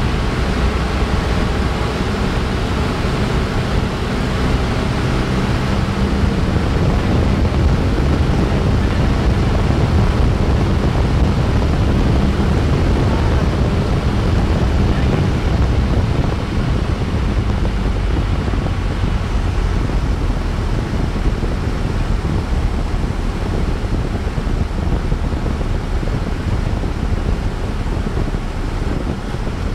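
Cessna 172's piston engine and propeller droning steadily, heard inside the cockpit with air rushing past the airframe, on final approach to land. The drone is a little quieter from about halfway through.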